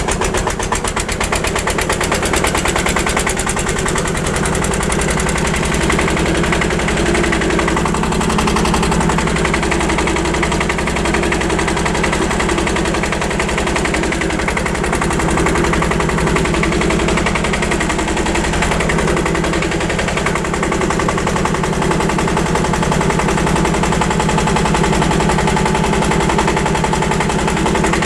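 Vintage diesel tractor engine running steadily under way, heard from the driver's seat, with a rapid, even knocking beat from its firing strokes.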